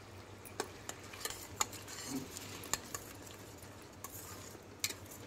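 A spatula stirring tomato and onion masala in a pressure cooker, knocking and scraping against the metal pot in a handful of irregular clicks, with a faint sizzle of the frying paste underneath.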